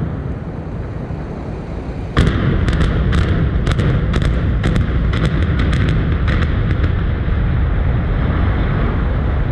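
Demolition explosive charges going off in the power plant implosion: a sudden blast about two seconds in, then a quick run of about a dozen sharp cracks over some four seconds, with a low rumble carrying on underneath.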